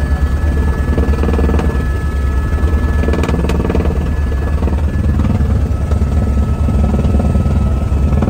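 Turbine helicopter heard from inside the cabin in flight: the rotor's fast, low beating runs steadily, with a thin high whine held over it.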